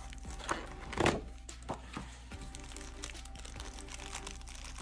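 Quiet background music, with crinkling and a few soft knocks from a planner purse being handled and opened; the loudest knock comes about a second in.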